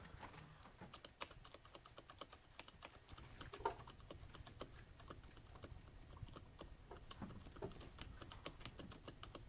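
Space bar of a Topre Silent keyboard, with electrostatic capacitive rubber-dome switches, tapped gently over and over: faint, soft clicks, several a second.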